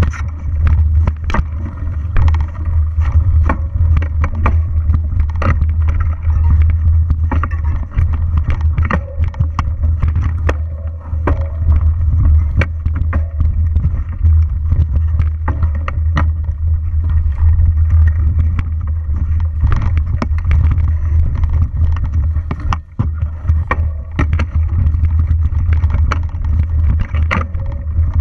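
Mountain bike riding fast over a rough forest singletrack, heard through an on-bike action camera: a constant low rumble of wind and vibration buffeting the microphone, broken by frequent sharp knocks and rattles as the bike jolts over roots and bumps.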